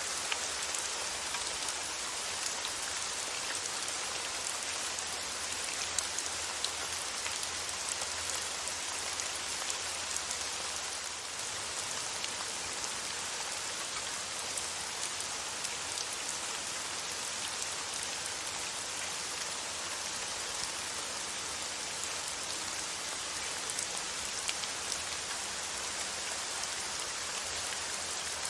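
Steady rain falling on a surface, a constant hiss with scattered small drop ticks.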